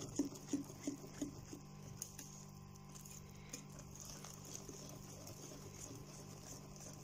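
Wire whisk beating thick cake batter by hand in a glass bowl: soft rhythmic strokes, about three a second for the first two seconds, then fainter and more even.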